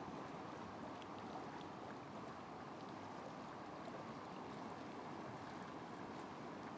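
Faint, steady rush of a river running over rapids.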